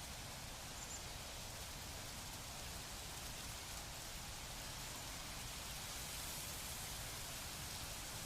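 Wind blowing through leaves: a steady, even rustling hiss that swells a little in the second half, with a low rumble underneath.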